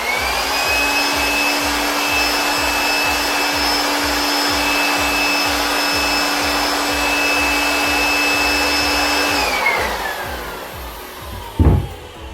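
Electric air pump running steadily with a high whine as it blows air into a giant rubber balloon. About nine and a half seconds in it is switched off and its whine falls in pitch as the motor winds down. A thump comes near the end.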